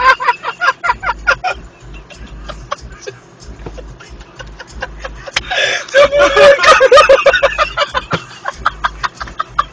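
People laughing in quick, repeated bursts, quieter in the middle and loudest about six to seven seconds in.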